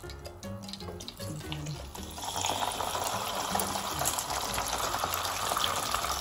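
A whole chicken in a wire fry basket frying in hot oil: the oil starts sizzling and bubbling about two seconds in and then keeps on steadily. Background music with a low bass line plays throughout.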